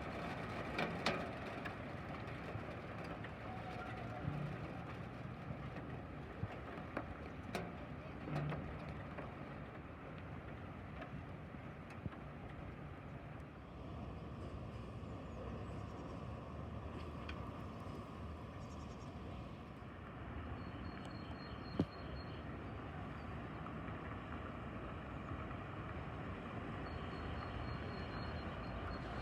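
Outdoor city ambience: a steady low rumble of distant traffic, with a few light knocks and, in the last third, faint short high chirps.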